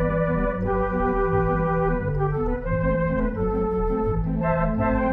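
Organ music: held chords over a bass line that changes note about every half second.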